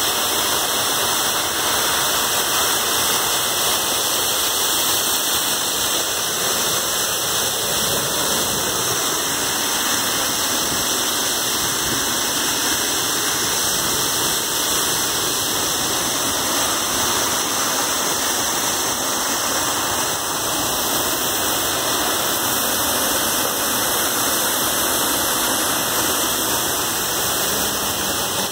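Waterfall close to the microphone: a steady, loud rush of falling water pouring and splashing.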